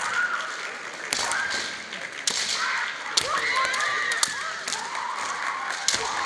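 Women's kendo bout: bamboo shinai clash and strike with several sharp cracks, along with stamping feet on a wooden floor. Between the cracks come drawn-out, wavering, high-pitched kiai shouts.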